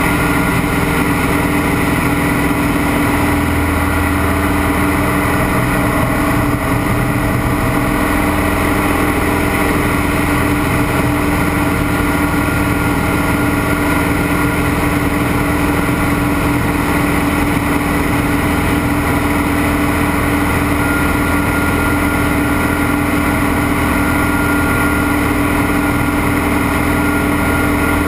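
Scottish Aviation Bulldog's four-cylinder Lycoming piston engine and propeller running steadily in flight, heard inside the closed cockpit.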